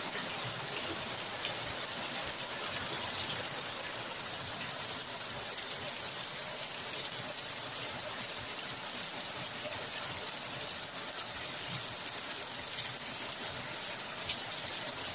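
Very heavy rain pouring steadily onto a flooded concrete yard and leafy trees, an even, unbroken wash of noise.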